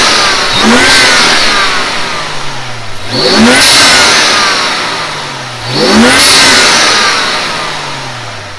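BMW M235i's turbocharged inline-six revved three times through a CTS Turbo cold air intake, each rev rising quickly in pitch and falling away slowly, with a hiss at the top of each rev.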